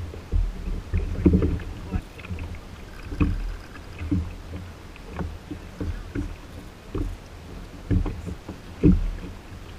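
Small waves slapping and knocking against the plastic hull of a Hobie Outback kayak as it moves through choppy sea, an irregular run of low, splashy thumps, one every half second to second.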